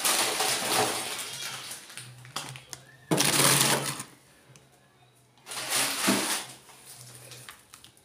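Three loud bursts of rustling noise, each about a second long: near the start, about three seconds in, and about five and a half seconds in.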